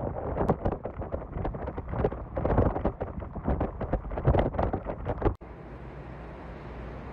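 Hurricane-force wind buffeting the microphone in loud, irregular gusts. About five seconds in it cuts off abruptly to a quieter, steady rush of wind.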